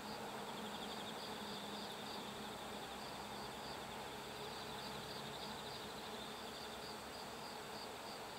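Insects chirping in a steady, high, pulsing trill over a faint outdoor hiss.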